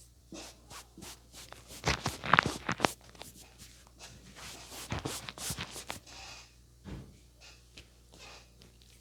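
Hands working a head and neck massage: rubbing on skin and hair, broken by runs of quick sharp slaps or taps, the loudest run about two seconds in and another around five seconds.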